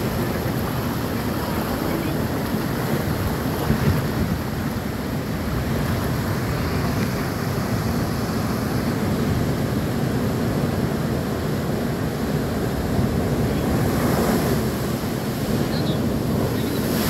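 Heavy storm surf at a spring high tide, breaking against a sea wall and washing across a flooded slipway, with wind buffeting the microphone. A wave crashes against the wall near the end, louder than the rest.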